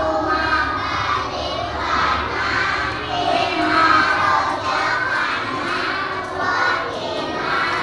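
A class of young children singing or chanting together in unison, many voices at once.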